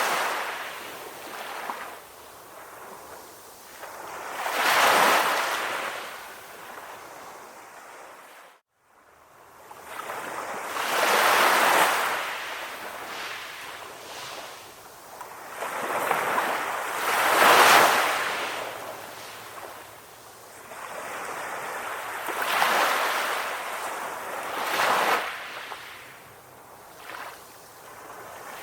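Ocean waves breaking and washing up the shore, a swell of surf every five or six seconds between quieter wash. About nine seconds in the sound drops out for a moment.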